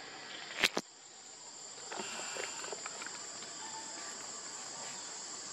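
Steady high-pitched chorus of insects, with two sharp clicks close together about half a second in.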